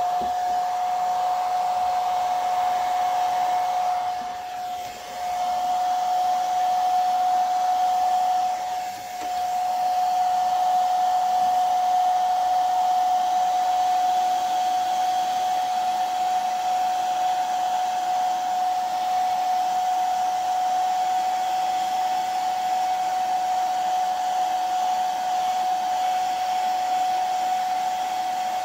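Conair 1875 handheld hair dryer running, a steady whine over the rush of air, blowing on freshly airbrushed lure paint to dry it. The sound dips briefly twice in the first ten seconds.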